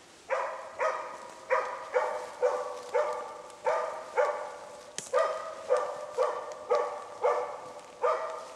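Moose-hunting dog giving a stand bark (ståndskall): a steady run of single barks, about two a second, each fading off briefly. Stand barking is the sign that the dog is holding moose at bay, here a cow and calf.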